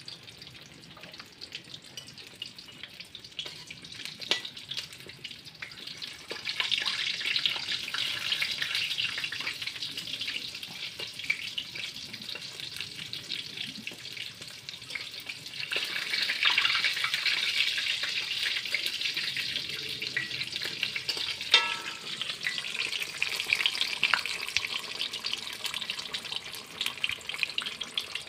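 Fritters deep-frying in hot oil in an aluminium wok, a steady crackling sizzle that gets louder about six seconds in and again around fifteen seconds. A single sharp click about two-thirds of the way through.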